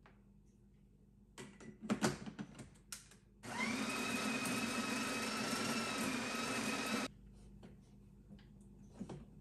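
A few clicks and knocks, then a small electric motor whirs steadily for about three and a half seconds, starting and cutting off suddenly.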